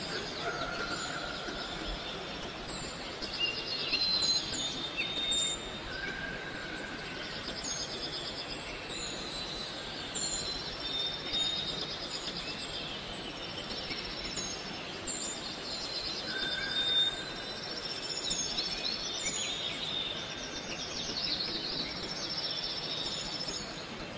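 Outdoor ambience of several birds calling: many short high chirps, buzzy trills and a short whistled note repeated every few seconds, over a steady background hiss.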